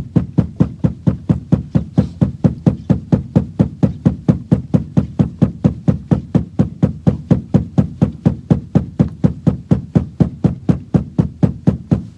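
A boat hull being beaten by hand in a steady rapid rhythm, about four dull knocks a second, to stir up fish holding on the bottom below. The beating stops just before the end.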